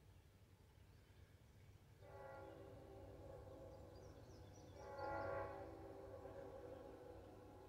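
Locomotive air horn of an approaching train still out of sight, sounding faintly in a long blast from about two seconds in and swelling louder around the middle, over a low steady rumble.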